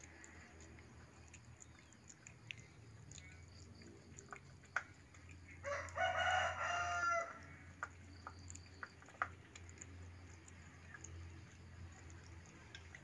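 A rooster crows once, about six seconds in, a pitched call lasting about a second and a half. Around it, a low steady hum and scattered faint clicks.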